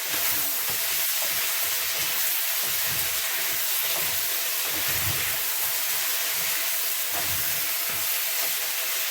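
Chicken, liver and kidney cooking in the pot, a steady sizzling hiss with soft low bumps underneath.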